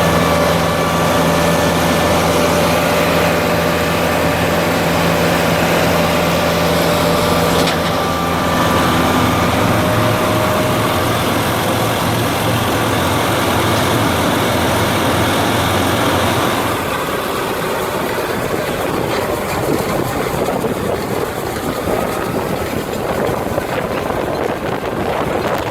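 Tractor diesel engine running steadily under load while it pulls a round baler working in straw. About two-thirds of the way through, the engine tone drops away and an even rushing noise remains.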